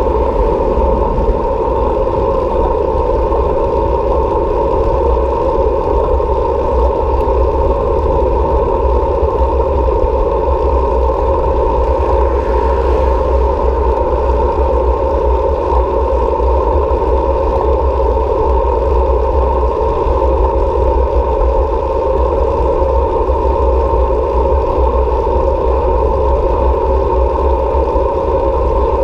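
Steady wind rush and road noise while riding a bicycle, heavy in the low rumble, with a slight swell about halfway through.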